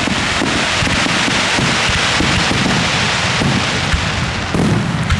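Fireworks grand finale: aerial shells bursting in rapid succession, with a dense, continuous crackle and frequent low booms.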